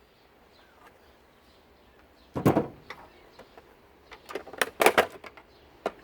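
Knocks and rattling clatter of washing-machine parts being handled and pried apart: one loud knock about halfway through, then a quick run of several knocks and rattles near the end.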